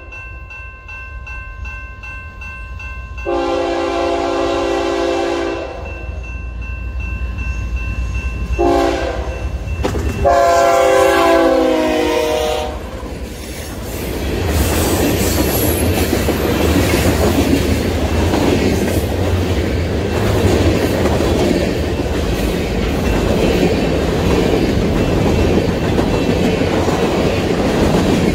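A BNSF diesel freight locomotive's multi-note air horn sounds for the grade crossing: a long blast, a short blast and a final long blast as the train approaches. Then the train rolls past, with a steady rumble and the clickety-clack of freight-car wheels over the rail joints.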